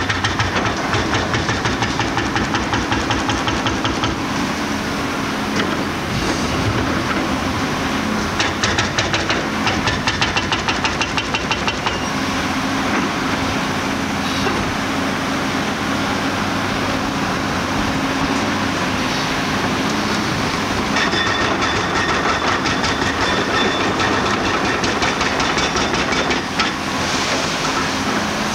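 Diesel engine of a 320-ton Caterpillar-based demolition excavator running under load, a steady drone with a higher whine over it. Stretches of fast, even clattering come and go, at the start, in the middle and again near the end.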